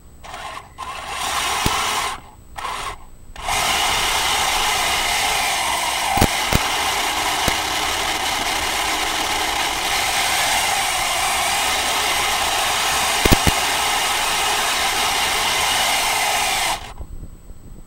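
Mato metal Tiger I RC tank's drive motors, gearboxes and metal tracks running as it drives, heard as a loud, even grinding noise. It comes in short bursts at first, then runs steadily with a few sharp knocks and cuts off suddenly near the end.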